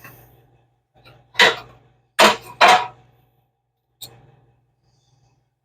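Old metal dash parts being handled on a bench: three sharp clanks in quick succession in the first three seconds, then a lighter tap about four seconds in.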